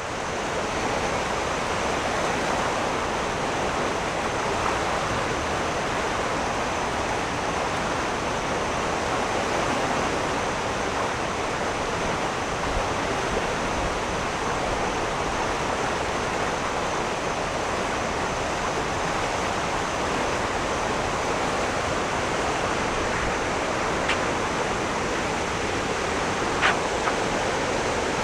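Flooded creek rushing steadily, a constant wash of fast, high water. Two faint short ticks near the end.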